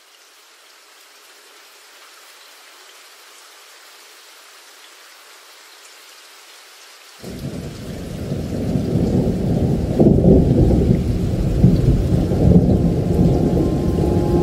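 Rain and thunder: a faint hiss of rain at first, then about halfway a loud, low thunder rumble breaks in suddenly and rolls on over heavy rain, swelling again a few seconds later.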